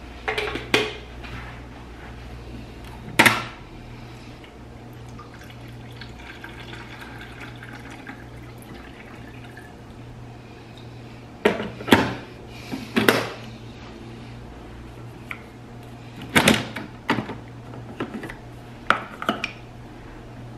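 Water poured from a gooseneck kettle into a Keurig coffee maker's reservoir, among sharp clunks and clicks of the kettle, its base and the reservoir lid being handled. A steady low hum runs underneath.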